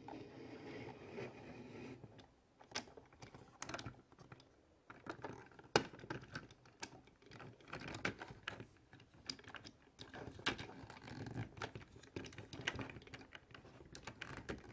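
Plastic parts of a Mattel Disney Pixar Cars toy hauler clicking and tapping as they are handled, while the trailer side is opened and its fold-out ramp lowered. The clicks come at an uneven pace, with one sharper click about six seconds in.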